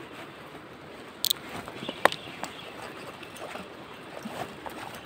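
Steady trickling, gurgling water, with a brief hiss and a sharp click a little over a second and two seconds in.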